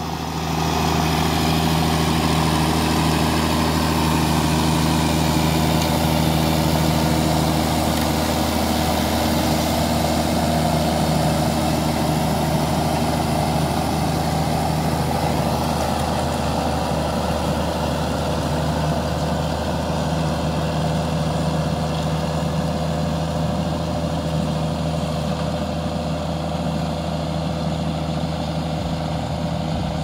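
Straight-piped six-cylinder diesel engine of a Ford TW-25 tractor running steadily under load, pulling a four-furrow Kverneland plough through the ground.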